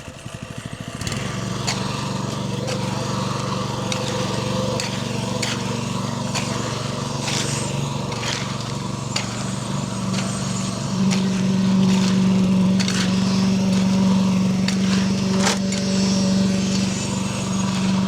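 Small engine running steadily, getting louder about eleven seconds in, with scattered short knocks and scrapes over it.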